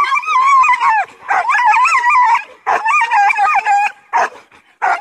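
Young German Shepherd giving long, high-pitched, wavering cries: four drawn-out ones, with a short yelp between the last two. The dog is worked up, straining on its leash toward the helper.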